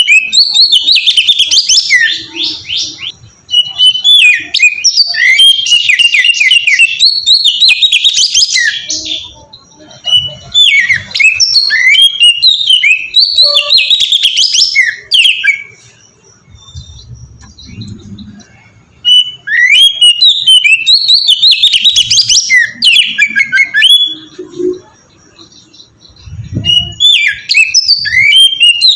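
Oriental magpie-robin (kacer) singing loud, rapid, varied phrases of chirps and whistles in about five bursts, with short pauses between them.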